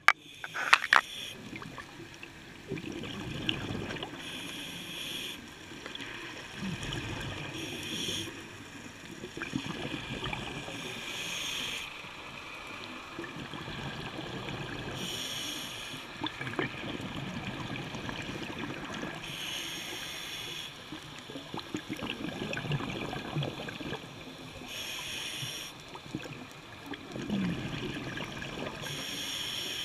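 Underwater sound picked up by a camera in its housing: a low, muffled rumble of moving water with a hissing burst every four seconds or so.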